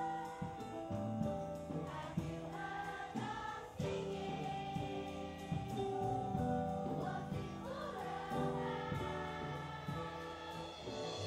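Children's choir singing a song in unison with a live band, hand drums (congas) and other percussion beating time beneath the voices.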